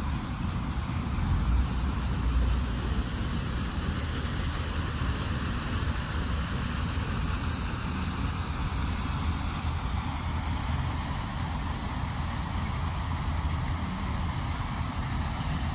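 Steady outdoor rumble and hiss with no distinct events: a deep, slightly fluctuating low rumble under an even hiss.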